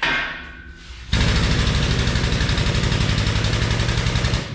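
A sharp metal clang with a fading ring. About a second in, a power impact tool starts hammering rapidly and loudly on the engine and subframe assembly, runs for about three seconds and stops abruptly.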